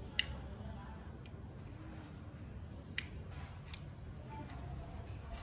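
A few short, sharp clicks spread over several seconds, faint: a hand lighter being flicked at a firecracker's fuse, which does not catch, so the firecracker is a dud.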